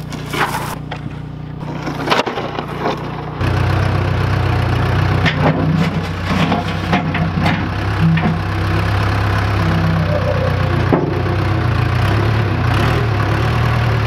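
A few sharp wooden knocks, then about three seconds in a backhoe loader's diesel engine comes in loud and runs steadily while its front bucket is driven into a narrow wooden frame and lifted.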